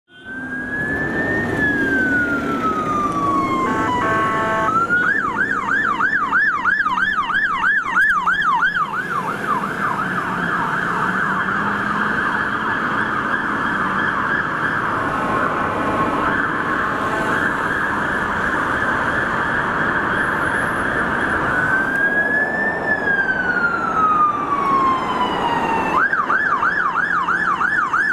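Fire engine siren switching between a slow wail that rises then falls and a rapid yelp, over low traffic and engine rumble. It opens with a wail, goes into the yelp about five seconds in, returns to a wail past the twenty-second mark, then goes back to the yelp near the end.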